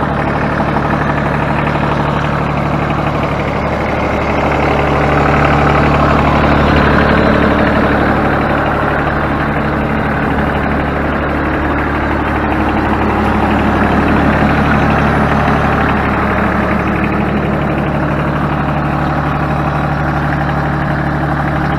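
Ford New Holland 1630 tractor's three-cylinder diesel engine idling steadily.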